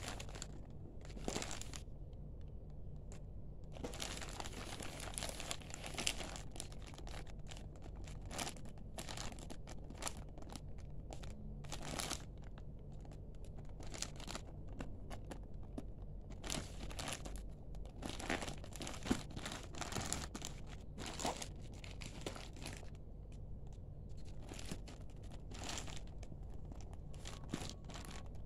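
Thin plastic wrapping of a toilet paper multipack crinkling as it is handled and turned over, in irregular crackles with a couple of short pauses.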